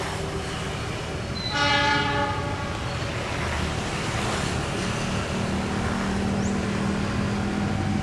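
KAI CC 206 diesel-electric locomotive sounding one short horn blast about a second and a half in, as it pulls away at the head of a passenger train. Its diesel engine rumbles underneath and grows louder in the second half as the locomotive comes closer.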